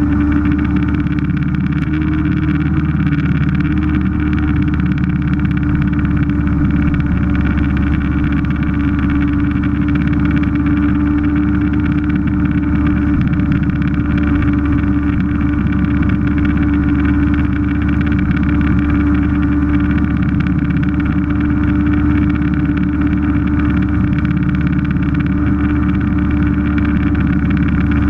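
Vintage Vespa scooter's small two-stroke engine running at a steady cruising speed, heard from a camera mounted on the scooter, with wind rushing over the microphone.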